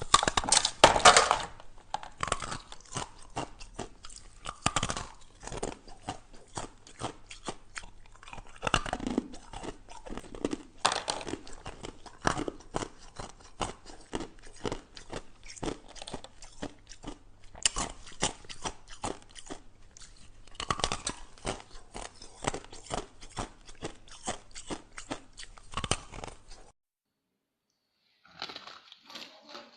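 Ice being bitten and chewed close to the microphone: a dense run of sharp, crunching bites, some louder than others, that stops suddenly near the end. After a short silence a different, quieter sound begins.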